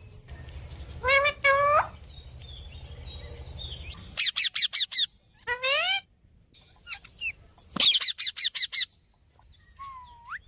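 Green parrot calling: a pair of harsh calls, then two quick runs of shrill, repeated screeches and a single rising whistle near the end.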